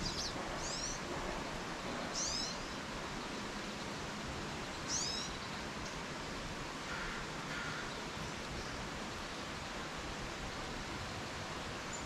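Small songbirds at a feeder giving a few short, high chirps, each a quick downward sweep, with two lower calls about seven seconds in, over a steady background hiss.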